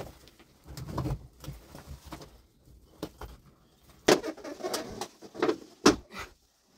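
Loose rocks and dry soil being scooped and shifted by hand: irregular scraping and clattering, with two sharper knocks of stone on stone about four and six seconds in.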